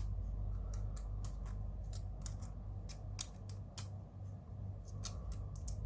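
Irregular small sharp clicks of a wrench working a nut on a plastic Mini 4WD chassis, as the nut holding a roller is tightened, over a steady low hum.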